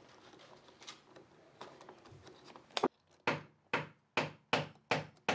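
Light handling of door lock hardware, then from about halfway a regular run of sharp clicks, two to three a second, as a hand screwdriver drives the mounting screws of a door lockset.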